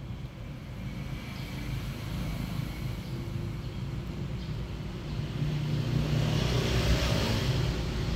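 A low engine rumble from a passing vehicle, swelling to its loudest about six to seven seconds in and then easing.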